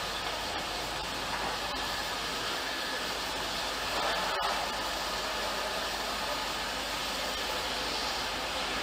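Steam locomotive standing at the platform, giving off a steady hiss of steam.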